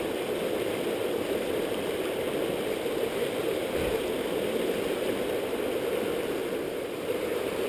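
Shallow mountain stream rushing steadily over stones and rocks.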